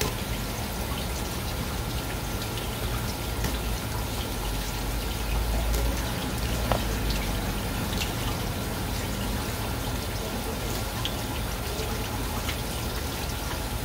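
Water running steadily from a tap, with scattered small clicks and one sharper knock about seven seconds in.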